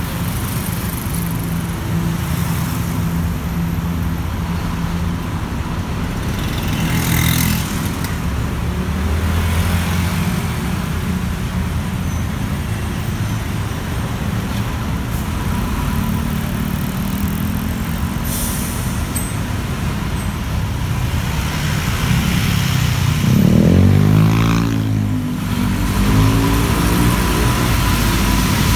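City bus engine running, heard from inside the bus, with the noise of traffic alongside. Two short hisses come about 7 and 18 seconds in, and around 24 seconds the engine revs up and drops back.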